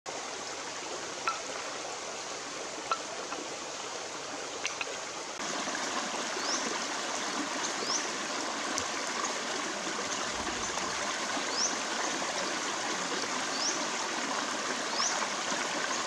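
Shallow stream running over rocks, a steady rush of water that grows louder about five seconds in, with a few short, high chirps above it.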